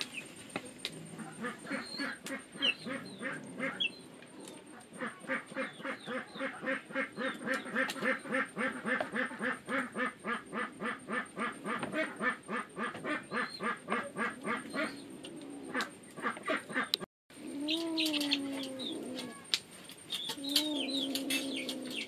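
Ducks quacking: a fast, even run of quacks, about five a second, through the middle. After a brief break about 17 seconds in come slower, drawn-out calls.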